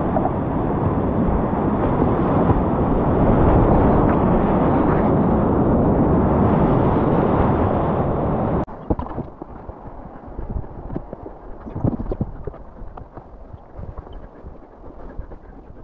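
Whitewater rushing loudly around a kayak running a rapid. About eight and a half seconds in it cuts off abruptly, and quieter irregular footsteps crunch on dry leaf litter along a trail.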